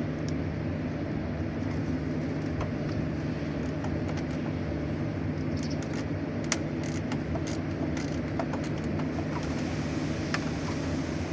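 A steady low mechanical hum, with scattered light metallic clicks and clinks from a 10 mm socket wrench working on the radiator cooling fan's bolts.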